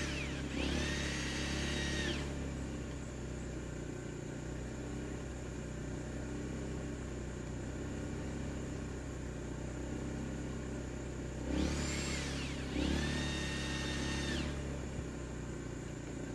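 Rooster crowing twice, once at the start and again about twelve seconds in, each crow an arched first note followed by a longer held note. A steady low hum from a backup generator runs underneath.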